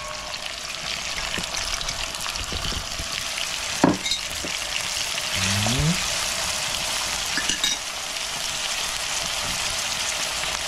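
Flaked red herring, onion and sweet peppers sizzling as they fry in a frying pan, stirred with a fork, with a steady hiss and a sharp knock about four seconds in.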